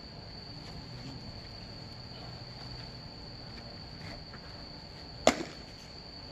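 A single sharp smack of the pitched baseball at home plate about five seconds in. Under it, a steady high-pitched trill of insects, likely crickets.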